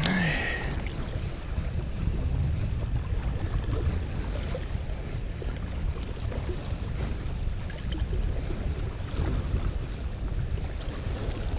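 Steady wind noise on the microphone over the wash of a calm sea against rocks. Right at the start comes a short whoosh of a spinning rod casting a lure.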